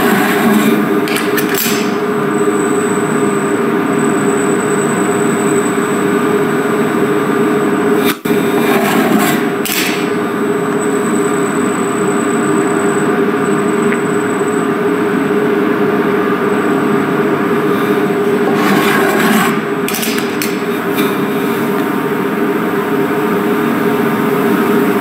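Turin SCARA robot arm running pick-and-place cycles with a vacuum suction gripper: a steady machine hum, with short bursts of hiss about a second in, around nine seconds in and again near twenty seconds in.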